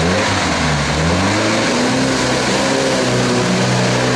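UAZ-469 off-roader's engine revving up over the first couple of seconds, then held at steady high revs under load as the vehicle drives through a deep muddy water hole.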